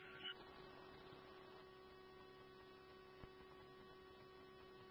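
Near silence: a faint steady electrical hum on the radio feed between transmissions.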